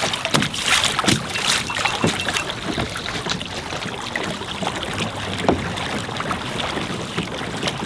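Water splashing and rushing against a kayak on the move, with irregular sharper splashes throughout.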